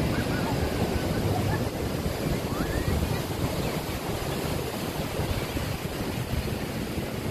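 Ocean surf breaking and washing up a sandy beach: a steady rush of waves with a deep rumble underneath.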